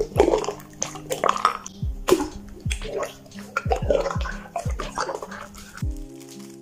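Slime being squeezed and pressed by hand, making irregular wet clicks and squelches, over soft background music with a low beat.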